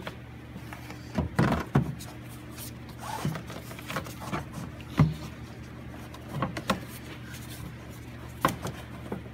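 Hard plastic air intake tube clunking and scraping against the plastic air box as it is worked into place over its lubricated rubber bushings: scattered short knocks, several in the first two seconds and more every second or two after, over a steady low hum.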